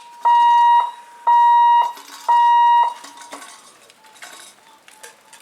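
Three loud electronic beeps, each a steady tone about half a second long, about a second apart.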